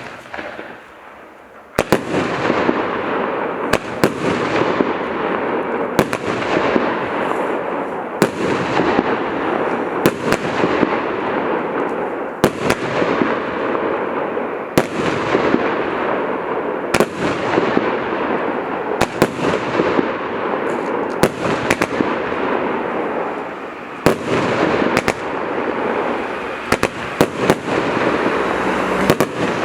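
Multi-shot firework cake firing: sharp bangs about every two seconds over a dense, continuous hiss, starting about two seconds in after a short quiet.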